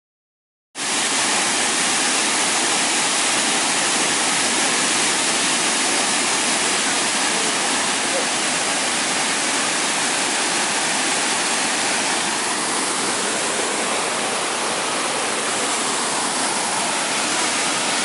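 Shifen Waterfall, a wide curtain waterfall about 40 m across with a 20 m drop, pouring into its plunge pool: a steady, even rush of falling water that starts abruptly under a second in.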